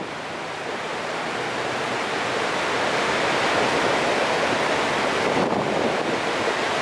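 Large waterfall's steady rush of falling water, the Genesee River's High Falls, growing a little louder over the first few seconds.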